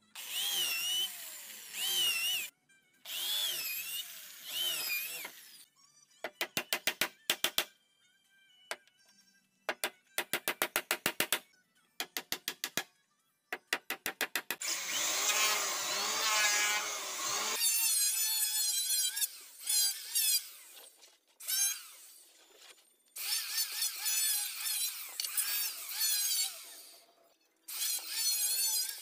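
Electric hand drill boring into a hardwood frame joint in repeated short bursts, its motor pitch wavering as the bit bites, with runs of quick rapid clicks between. Near the end an electric hand planer starts up.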